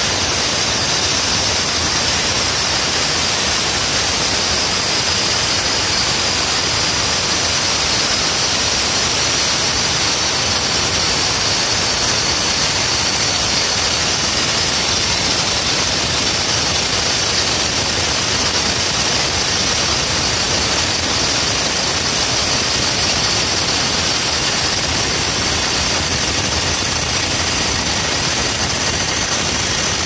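Hand-held concrete cutting saw with a large diamond blade grinding steadily through a concrete slab: a continuous loud, hissing grind with a high whine, unchanged throughout.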